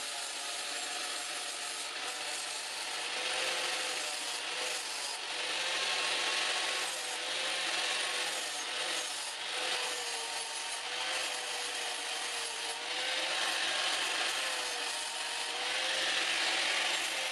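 Angle grinder with an abrasive disc grinding down weld beads on a steel bar: a continuous harsh grinding hiss with the motor's whine wavering slightly in pitch.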